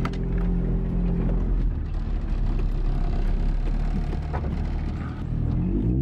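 Honda B16A four-cylinder engine running, with a steady engine note for about the first second and a half, then a low rumble with a few light clicks.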